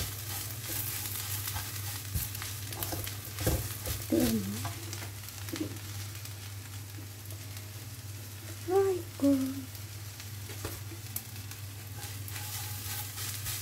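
Papaya leaves stir-frying in a non-stick wok: steady sizzling with the repeated scrape and knock of a silicone spatula turning the leaves, over a low steady hum. A couple of brief voice-like sounds stand out, the loudest a little past the middle.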